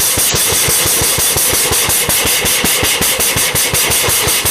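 Metal dish (صحن) beaten rapidly and repeatedly against a man's head, a fast even run of metallic hits at about nine a second.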